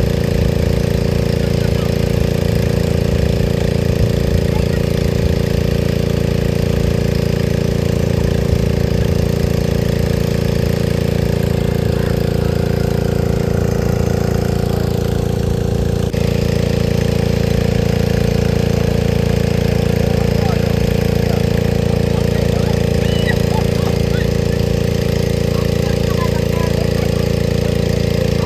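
An engine running steadily at an even, unchanging speed.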